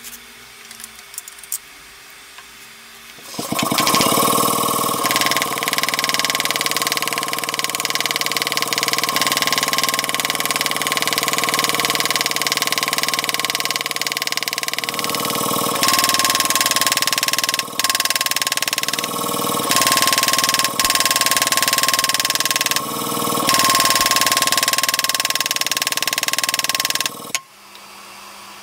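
A power tool runs steadily with a high whine. It switches on about three seconds in, dips in level briefly a few times, and cuts off near the end.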